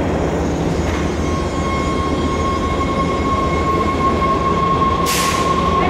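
Washington Metro train rolling into the platform: steady rumble of wheels on rail with a single high whine from its motors holding from about a second in. A short burst of hiss comes near the end.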